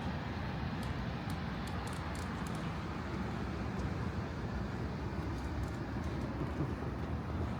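Steady low rumble of city street traffic, cars passing without any single one standing out.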